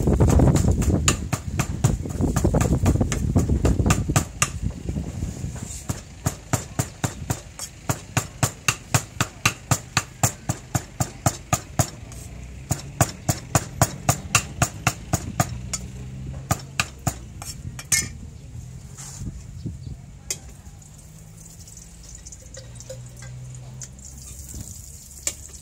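Meat cleaver mincing chicken on a thick round wooden chopping board: a fast, steady run of knocks, about three or four a second, that stops about three-quarters of the way through, leaving only a few scattered knocks. A low rumble sits under the first few seconds.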